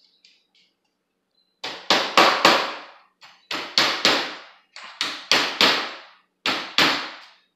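Hammer driving small trim nails into the wooden trim of a screen door: a few light taps, then about a dozen sharp blows in quick groups of three or four with short pauses between.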